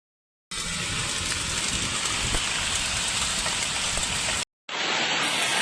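Heavy rain falling steadily on hard surfaces, as a dense, even hiss. It breaks off at a cut about four and a half seconds in and comes back from a second recording of the downpour.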